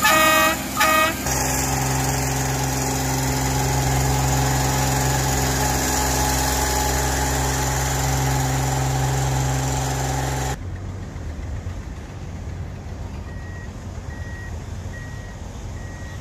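Rail maintenance machine's horn sounding two short blasts, then its engine running steadily as it moves along the track. The engine sound cuts off abruptly about ten seconds in, leaving a quieter background with faint beeps repeating near the end.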